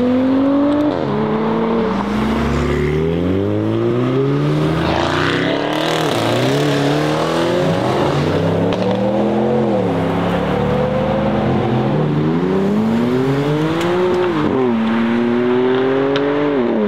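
Mercedes-AMG E63 S with a decat exhaust, its twin-turbo V8 revving loudly up and down over and over, each rev climbing for a second or two before the pitch drops away.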